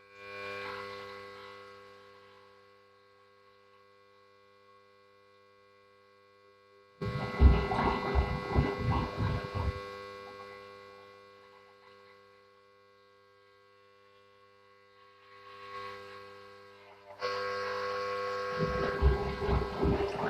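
Household water pump humming loudly with an electrical buzz while a washing machine fills with water. Louder, rougher spells break in suddenly about seven seconds in and again near the end.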